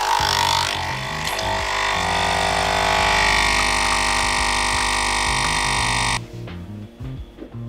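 Background music with a stepping bass line over the steady whirr of a Nespresso capsule machine's pump brewing espresso, which stops abruptly about six seconds in.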